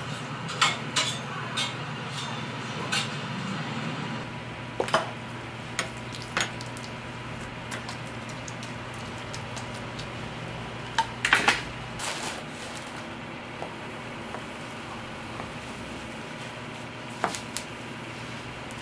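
Scattered clinks and clatter of metal kitchen utensils on a steel flat-top griddle, the loudest in a quick run of clinks about eleven seconds in, over a steady low hum.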